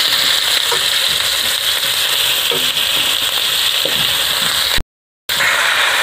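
Crushed ginger frying in hot oil in a wok, a steady loud sizzle, stirred with a wooden spatula. The sound cuts out completely for about half a second near the end, then the sizzle resumes.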